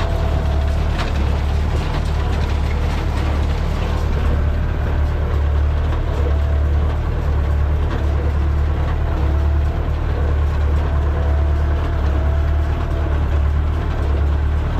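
Massey Ferguson 575 tractor's diesel engine running steadily under load while it drives a New Holland 377 baler baling hay, with the baler's mechanism working behind the engine.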